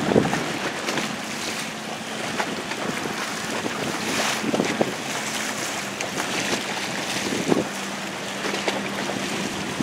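Wind buffeting the microphone over rushing, slapping waves, with a boat engine's faint steady hum underneath and a couple of louder splashes.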